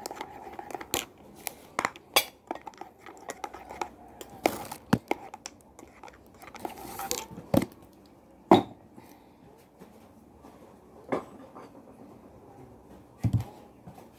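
Tableware being handled on a table: irregular clicks, clinks and knocks from dishes, a mug and a lidded thermos jar, a few of them louder than the rest.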